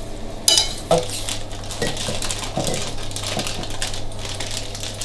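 A metal spoon clinks and knocks against a stainless frying pan two or three times while beef tenderloin steaks are basted in butter and whisky sauce, followed by a soft, dense crackling.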